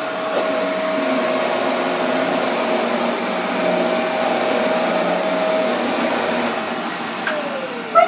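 Upright bagless vacuum cleaner running steadily with a hum and a steady whine. Near the end it is switched off and the motor's pitch falls as it winds down, with a brief loud blip at the very end.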